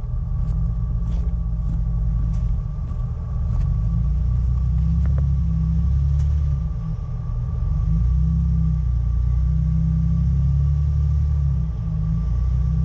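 Jeep Wrangler engine running at a low, steady rumble as the Jeep crawls over granite boulders, easing off briefly a few times. A few light clicks come in the first four seconds.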